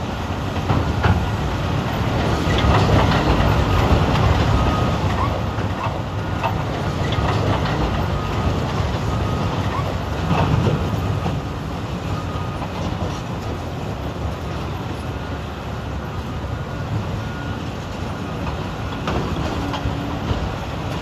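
Diesel engines of Caterpillar 395 hydraulic excavators working under load, with knocks and clatter as rock is loaded into the haul trucks. The noise swells in the first few seconds and again about ten seconds in.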